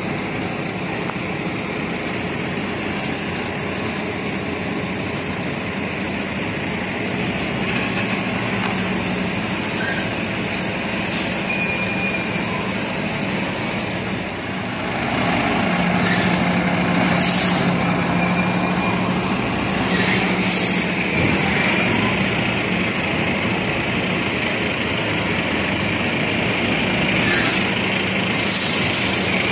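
Container truck's diesel engine running as the rig manoeuvres at low speed, with several short hisses of air from its air brakes. The engine grows louder about halfway through.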